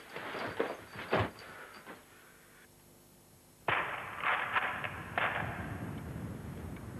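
A few sharp knocks and thuds, then a short lull, then a steady noisy wash that starts suddenly with more thuds.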